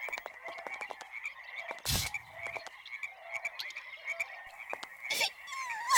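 Steady background chorus of rapid clicking calls, with a single dull thud about two seconds in.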